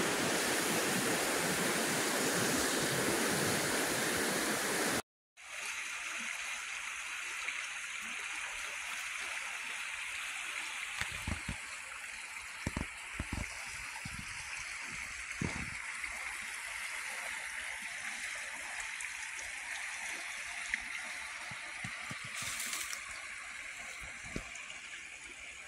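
Floodwater of a swollen creek rushing and rippling as a steady wash of noise. It is loud at first, then after a sudden break about five seconds in it goes on quieter, with a few soft low thumps.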